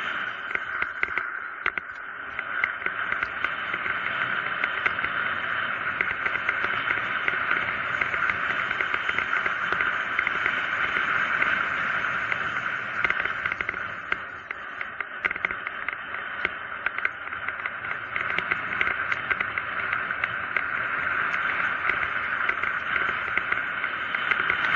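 Steady rush of wind and tyre noise on the camera microphone of a mountain bike coasting fast down a paved road, with frequent small clicks and rattles from the bike over the bumps. The loudness swells and dips a little as the speed changes.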